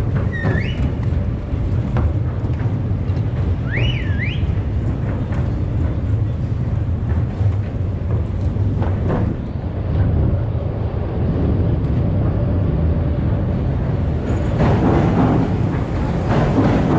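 Skate wheels rolling over pavement, a steady low rumble, with two short high whistle-like glides near the start and about four seconds in. The sound gets busier and louder near the end.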